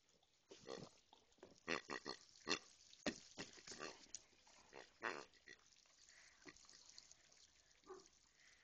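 A small grey piglet grunting in short, quick grunts, most of them in the first five seconds, with one more near the end.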